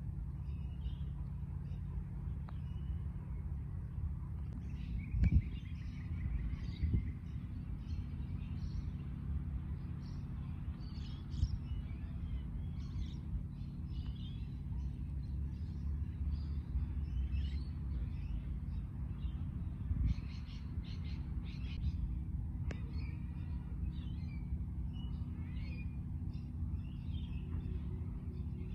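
Small birds chirping on and off over a steady low hum, with a couple of brief knocks about five and seven seconds in.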